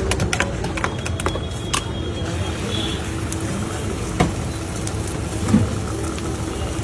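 Quick run of metal clinks from a spoon working in a steel bowl over a steady low rumble, then two sharp knocks of utensils later on.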